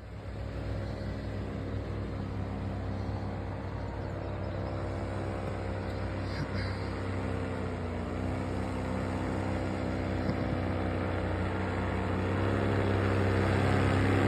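Vittorazi Moster 185 single-cylinder two-stroke paramotor engine running steadily with its propeller. Its pitch dips slightly about eight seconds in, then it gets louder near the end as the throttle comes up.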